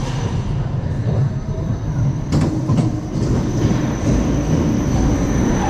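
Intamin launch roller coaster train rolling along its steel track, its wheels rumbling steadily, with a couple of sharp clunks about two and a half seconds in.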